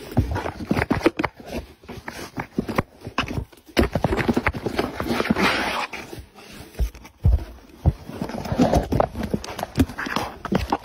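A cat moving and pawing inside a cardboard box, with irregular thumps and scratching on the cardboard.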